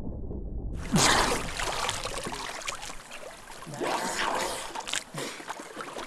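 Muffled underwater rumble for about the first second, then water splashing and trickling at the side of a wooden outrigger boat as a diver moves at the surface.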